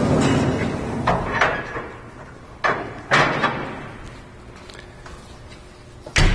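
Clunks and knocks of fire engine compartment doors and hardware being handled: a few sharp knocks in the first half, then a louder heavy thud just before the end. A steady rushing noise fades out over the first two seconds.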